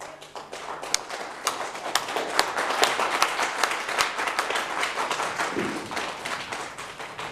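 Theatre audience applauding the cast at the curtain call: dense clapping that builds over the first couple of seconds, then holds steady.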